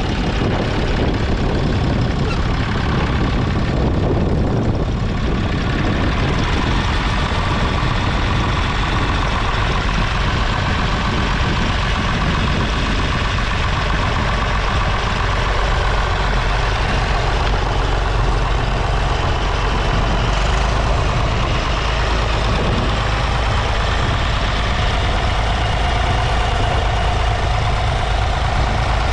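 1962 Massey Ferguson 35's 2.5-litre three-cylinder diesel engine running steadily under load while pulling a two-furrow mounted plough, heard close to the engine.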